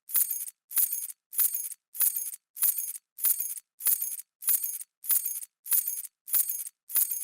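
A bunch of metal keys dropped, landing in a short jingling clatter of several clinks, the same clatter repeating about every 0.6 seconds with a brief silence between each.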